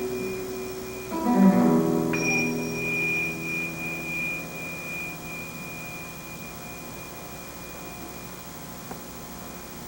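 Notes on a plucked string instrument. A chord is struck about a second in and rings and fades away over a few seconds. After that only a faint steady hum remains.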